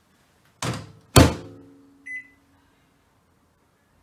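Panasonic microwave oven door being shut: a knock, then the door slamming closed loudly with a brief ringing, followed about two seconds in by one short keypad beep as the cooking time is entered.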